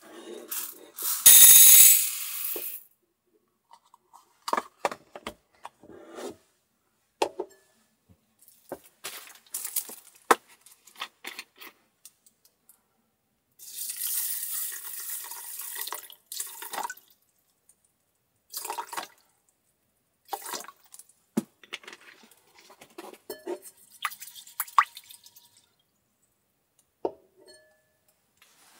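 Dry rice poured from a measuring cup into a rice cooker's metal inner pot with a loud hissing rattle about a second in. Scattered small clicks and rustles follow, then a stream of water poured from a plastic bottle onto the rice for a few seconds, about halfway through. More light clicks and rustles of the pot and rice being handled come near the end.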